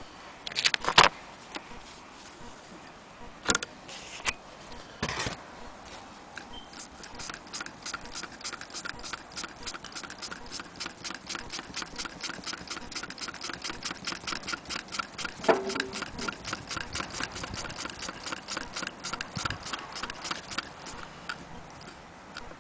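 Antique Willcox & Gibbs chain-stitch sewing machine running and stitching a scrap of fabric. Its mechanism makes a steady, fast ticking, about six clicks a second, that starts about six seconds in after a few separate knocks.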